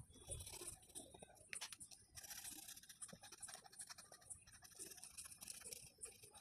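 Faint scratching of a drawing tool moving across paper in quick, repeated strokes.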